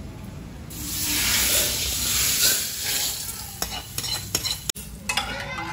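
Food hitting hot oil in a cooking pan: a loud sizzle swells up about a second in and then eases as it is stirred, with a few sharp clicks of the utensil near the end.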